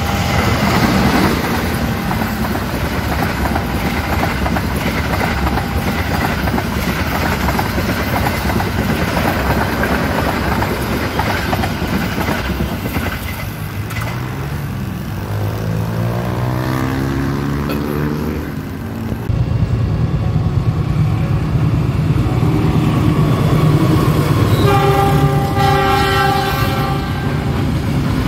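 Diesel-hauled trains passing close by: a steady rumble of locomotive and wheels on the rails, with an engine note that rises in pitch about halfway through. Later a freight train passes and a locomotive horn sounds one long blast of about three seconds near the end.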